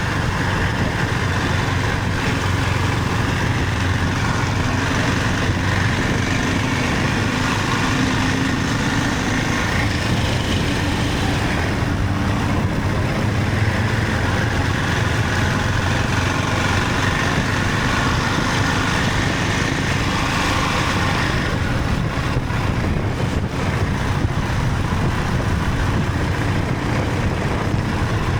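Motorcycle engine running steadily under an even rush of wind and road noise, as when riding.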